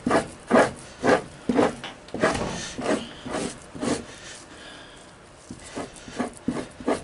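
Two-handled fleshing knife scraping fat and membrane off a raccoon hide stretched over a wooden fleshing beam, in short strokes about two a second, with a brief lull past the middle.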